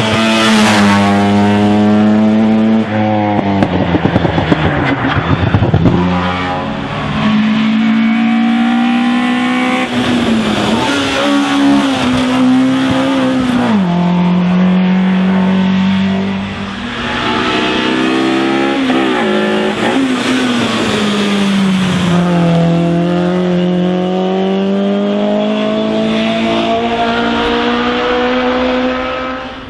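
Hill-climb race cars, modified touring cars such as a first-generation VW Golf, driven hard one after another at high revs. The engine pitch climbs, drops sharply and climbs again several times, as with gear changes.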